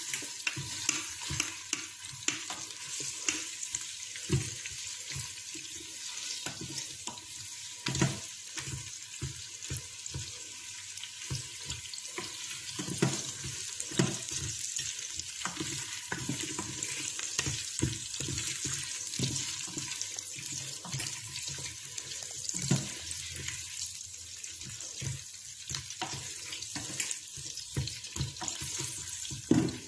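Sliced onions sizzling in hot oil in an electric pressure cooker's inner pot, while a spoon stirs them, scraping and knocking against the pot at irregular moments.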